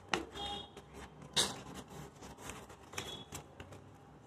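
A small paper sachet being unfolded by hand: faint paper crinkling and rustling in short scattered crackles, the loudest a little over a second in.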